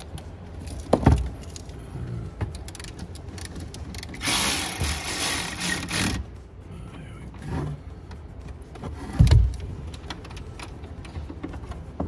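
Cordless electric ratchet running for about two seconds, a few seconds in, undoing the 10 mm nut on a car battery's negative terminal. Two dull knocks from handling the tool and terminal come before and after it.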